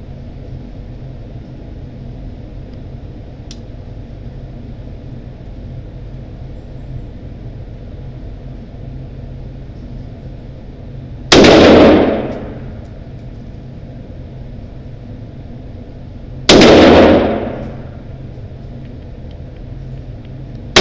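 Single shots from a WASR-10 AK-47-pattern rifle in 7.62×39mm, fired one at a time about five seconds apart. Each shot echoes for about a second in the enclosed indoor range, and a third shot comes right at the end. Under the shots runs a steady low hum.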